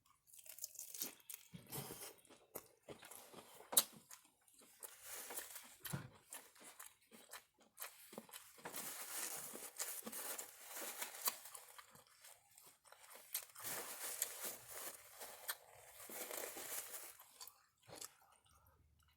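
A person chewing crunchy food: an uneven run of crisp crunches and mouth sounds, with brief pauses between bites.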